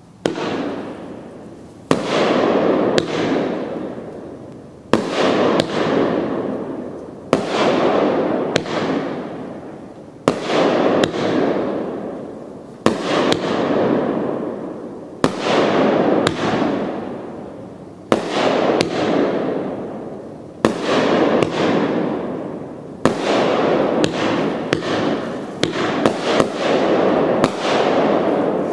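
Consumer firework cake (RGS Brand "Wolf Man") firing shot after shot, a sharp report about every one to two and a half seconds, each trailed by a noisy hiss that fades over a couple of seconds. Toward the end the shots come closer together.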